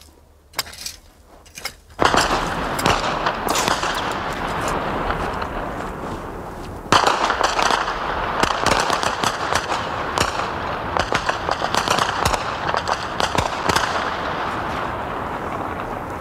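Gunfire: many rapid shots crackling and echoing together, starting suddenly about two seconds in after a few scattered cracks, with a louder burst about seven seconds in.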